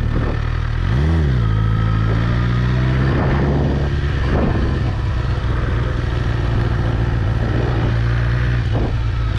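Suzuki GSX-R1000 K7's inline-four engine running on the move. Its pitch rises and falls once about a second in, then holds steady.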